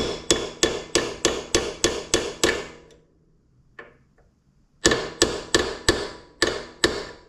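Hammer driving a new pin into the Corvair's choke thermostat: a quick run of about ten sharp blows, a pause with two light taps, then about seven more blows.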